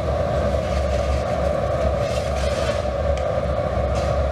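Steady, loud drone of glassworks workshop machinery, a constant low hum under a strong mid-pitched band, with a couple of faint clicks near the end.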